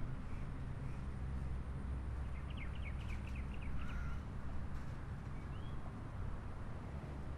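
Steady low rumble of distant traffic, with a quick run of small bird chirps about two and a half seconds in and a couple of single bird calls after it.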